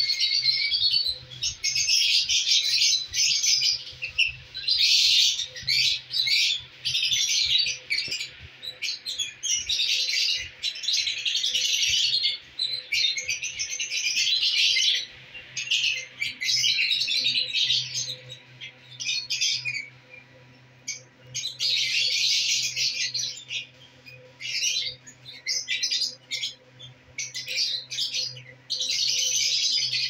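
Caged lovebirds chattering: dense runs of high-pitched chirps and squawks, each run a second or two long with short pauses between.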